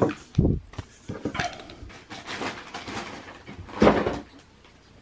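Handling noises on a wooden tabletop: scattered clicks and knocks as things are moved about, with a duller thump about half a second in and another near four seconds.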